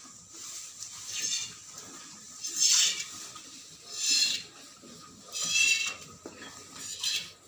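Cow being milked by hand: jets of milk squirting into a pail in separate spurts, five of them, roughly one every second and a half.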